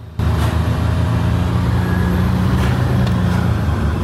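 Buick Grand National's turbocharged 3.8-litre V6 running steadily at a low, even pitch, cutting in suddenly just after the start.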